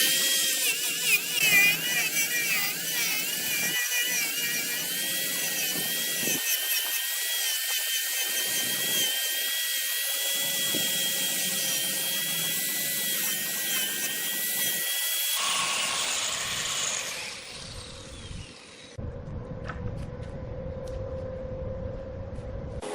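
A high-pitched power tool whining steadily over hiss, its pitch wavering in the first few seconds, then cutting off about fifteen seconds in and giving way to a quieter, duller noise.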